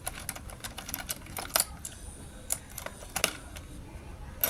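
Scattered sharp clicks and taps from handling an optical lens edging machine and its parts, with three louder knocks standing out.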